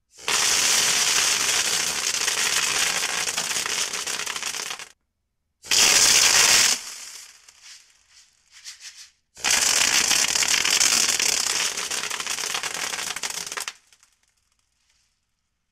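Homemade airsoft machine gun, a BB-filled soda bottle on a compressed-air blowgun fed from a backpack air tank, firing long bursts: a rushing blast of air with a dense crackling rattle of BBs. There are three bursts, about five seconds, one second and four seconds long, each cutting off sharply, with a few short spurts after the middle one.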